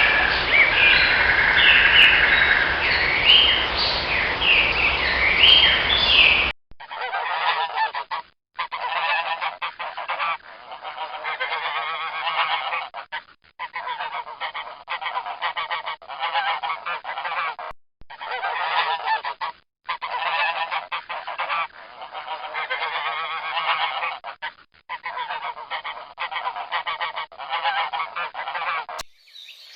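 A flock of birds calling, many overlapping calls with rising pitch for the first six seconds or so. Then a string of short clips cut together, each broken off by a brief gap, full of fast repeated calls.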